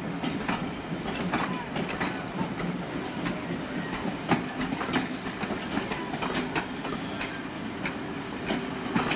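A train of coaches hauled by LMS Ivatt Class 2MT 2-6-0 steam locomotive No. 46443 passing, its wheels clicking irregularly over the rail joints over a steady rumble.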